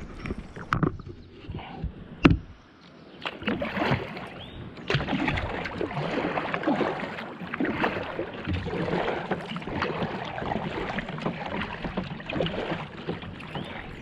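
A few sharp knocks against the boat, then about a second later continuous water splashing and sloshing: a hooked fish thrashing at the surface as it is fought to the boat.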